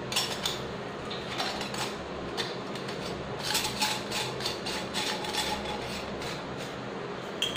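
Scattered light metallic clicks and taps as the parts of a brass sev press are handled and fitted together, over a faint steady hum.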